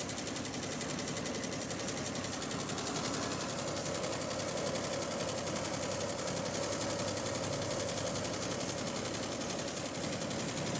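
Multi-needle commercial embroidery machine stitching at speed: a steady, fast, even clatter of the needle bar.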